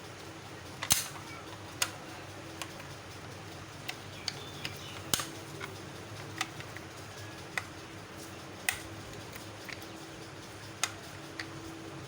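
About a dozen sharp, irregular clicks and light taps from small parts and tools being handled on a microwave oven under repair, over a steady low hum.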